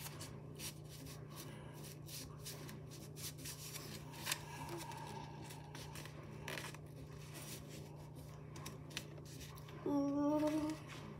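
Faint crackling, scraping and rustling as fingers press and wiggle a plastic cookie cutter through a slice of bread on a paper plate, with a steady low hum underneath. Near the end comes a short hummed voice sound.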